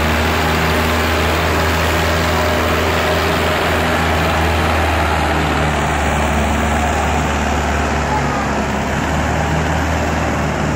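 Mahindra Arjun Ultra-1 605 DI tractor's diesel engine running steadily as it tows a trailer loaded high with sugarcane past at close range: a loud, even, low drone.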